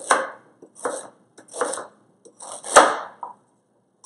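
Chef's knife chopping fresh ginger root coarsely on a plastic cutting board: a slow series of separate strokes, roughly one a second, the heaviest nearly three seconds in.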